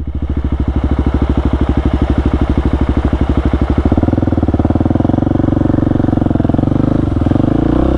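Husqvarna 701's single-cylinder four-stroke engine idling with an even, slow pulse, then rising to higher revs about four seconds in and holding there.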